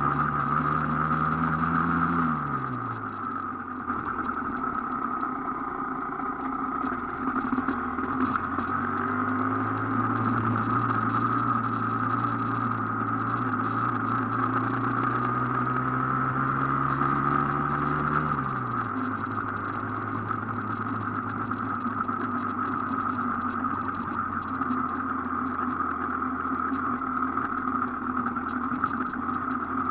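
Aprilia AF1 two-stroke single-cylinder motorcycle engine running under way at low revs. Its note drops about two seconds in, holds steady, then drops again about two-thirds of the way through as the throttle is eased.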